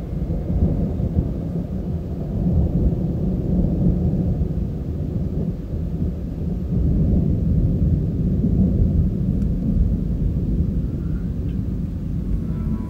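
Thunder from a severe thunderstorm: a deep, continuous rolling rumble that swells and eases without a break.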